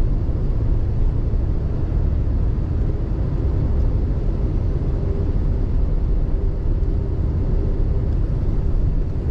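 Steady low rumble of a pickup truck driving, engine and tyre noise heard from inside the cab.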